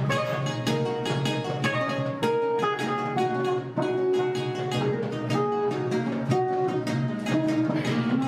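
Improvised duet of acoustic guitar and kenora, an ancestral plucked string instrument. It is an unbroken flow of plucked notes, about three to four a second, under a sustained, ringing melody.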